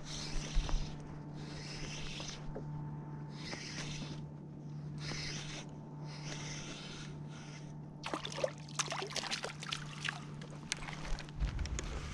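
A small sea bass being reeled up to a kayak: a hissing sound comes in regular bursts about every second and a half. After about eight seconds it gives way to a run of clicks and rattles as the fish is lifted from the water.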